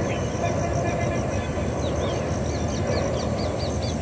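Birds calling, with a quick run of about six short, clear chirps in the second half, over a steady low rumble of outdoor noise, while insects keep up a fast, even high chirping.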